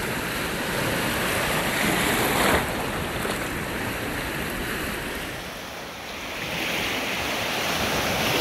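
Lake Superior waves washing in over a sand-and-pebble shore among boulders, with a little wind on the microphone. A wave surges louder about two seconds in, and the surf builds again near the end.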